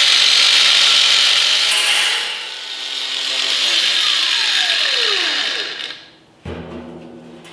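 Makita angle grinder with a cutting disc cutting through the wall of a stainless steel barrel with a loud, steady grinding hiss. About four seconds in it is switched off, and the disc winds down with a falling whine.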